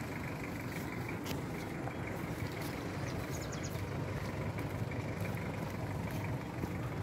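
The engine of an off-road 4x4 runs steadily at low speed as the vehicle crawls down a muddy dirt slope. A few faint ticks are heard over it.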